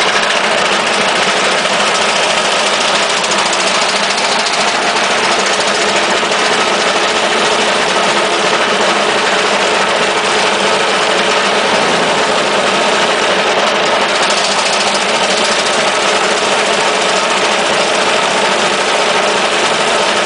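Engine-driven wood chipper running steadily at a constant speed, with no change in speed or load.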